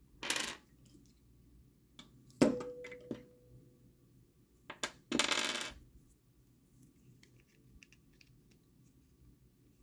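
A small metal piece drops onto a hard surface with a sharp clink and a ringing tone lasting about a second and a half, followed by two light clicks and a short rustle of handling.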